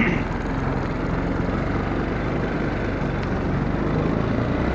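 Off-road vehicle engine running steadily while driving across a pasture, heard close up from the vehicle.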